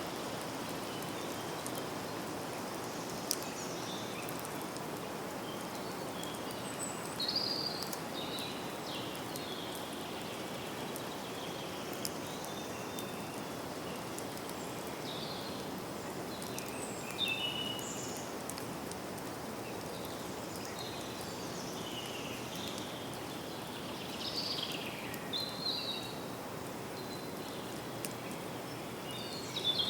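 Forest ambience: a steady hiss like rain or leaves, with birds chirping in short bursts several times and a few faint ticks like drips.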